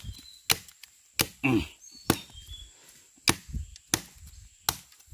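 Machete blade chopping into the base of a young bamboo shoot: about seven sharp, irregularly spaced strikes.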